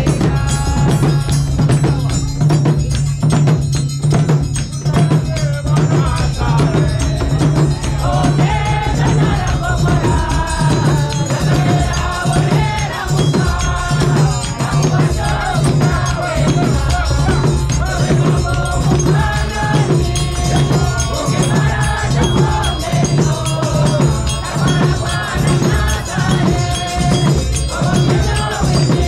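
Choir singing a hymn in Luhya to a steady beat of drums and hand shakers, the voices coming through more strongly about eight seconds in.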